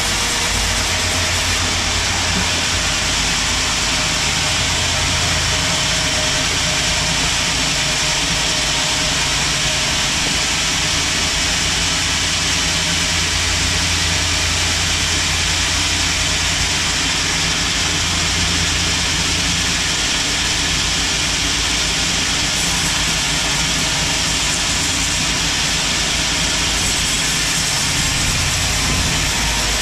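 Sawmill band saw and its driving engine running steadily, with an even, unbroken machine noise as teak is sawn.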